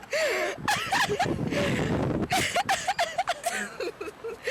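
Women laughing, in short repeated bursts of giggling and chuckling.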